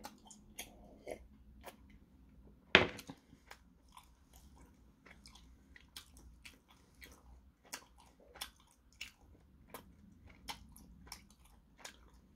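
A person chewing food with many small mouth clicks and crunches. About three seconds in there is one sharp knock, a glass being set down on the table.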